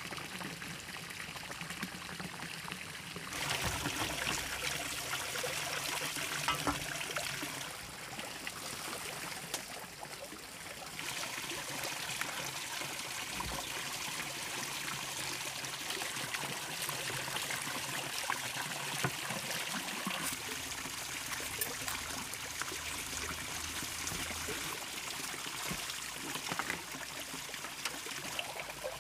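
Water running and trickling steadily, growing louder about 3 s in and again about 11 s in.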